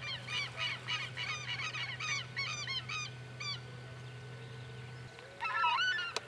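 Birds calling in a rapid series, about three or four arched calls a second, stopping about three and a half seconds in and starting again in a short burst near the end. A single sharp click follows the burst.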